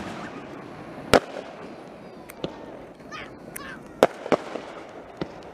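Fireworks show bursts: a string of sharp bangs at irregular intervals, the loudest about a second in and several more through the second half.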